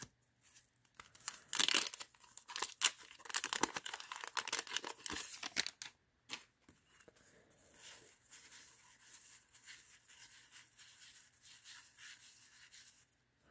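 Wax paper wrapper of a 1990 Fleer basketball card pack being torn and crinkled, in a run of rustles for several seconds, then fainter rustling of cards being handled.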